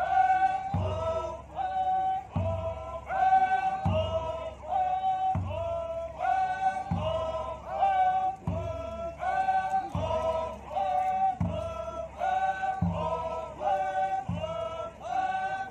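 A large group of Naga dancers chanting a traditional song in unison, the same short phrase repeating, over a deep beat that falls about every second and a half.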